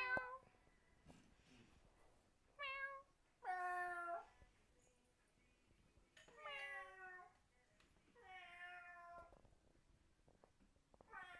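Domestic cat meowing repeatedly: about four drawn-out meows a couple of seconds apart, one answering call after another.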